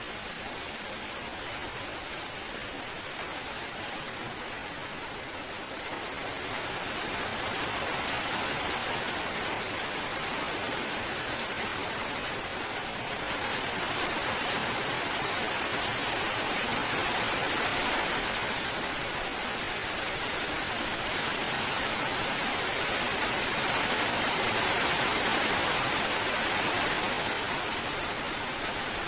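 Steady heavy rainfall, an even hiss of falling rain that swells a little louder several times.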